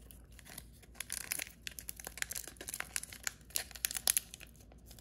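Foil Pokémon card booster pack wrapper crinkling and crackling as it is carefully torn open by hand. The crackles start about a second in and come in quick irregular bunches.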